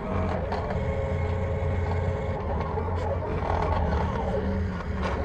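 Silhouette Portrait cutting plotter running: a motor hum with a whine that glides up and down in pitch as the blade carriage moves along its rail and the rollers feed the sheet, with a few light clicks.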